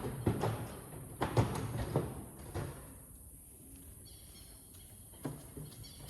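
Knocks and clatter of an aircraft engine cowling panel being handled and fitted into place: a quick run of knocks in the first half, the loudest about a second and a half in, then quieter with two more knocks near the end.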